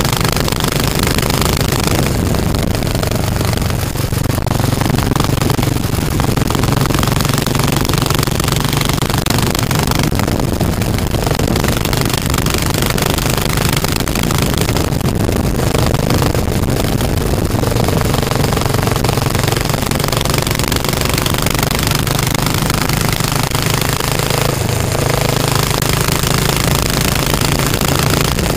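Yamaha SR500's single-cylinder four-stroke engine running through a Ducati silencer, its loud exhaust heard close up while the bike is ridden at a steady pace, with wind rushing over the microphone.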